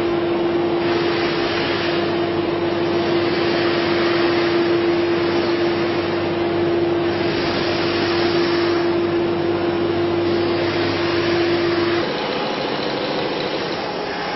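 Overhead crane's electric hoist running with a steady whining hum as it lifts a steel concrete-pole mould on chains; the hum cuts off near the end, leaving machinery noise.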